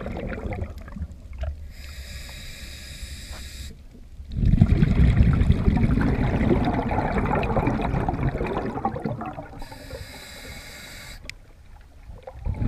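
Scuba diver breathing through a regulator underwater: a hissing inhalation, then a long low rush of exhaled bubbles, then another hissing inhalation near the end.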